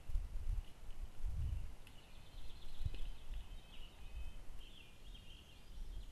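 Trail-camera forest ambience: low rumbling noise with a single sharp knock about three seconds in, and a small bird singing high, quick chirping phrases from about two seconds in until near the end.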